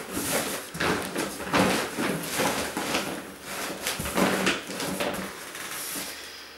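Cardboard moving box being handled and its flaps pushed shut: repeated rustling, scraping and light knocks.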